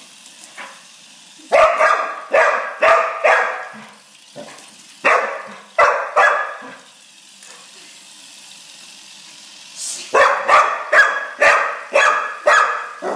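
A dog barking excitedly at a small skittering HexBug toy: three bouts of short barks in quick succession, about four, then three, then about seven, with pauses of a few seconds between.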